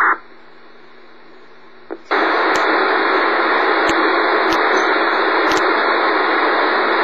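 Radio receiver putting out static between signals: a short burst at the start, then a low hiss that jumps to a loud, steady rush about two seconds in, with scattered sharp clicks through it.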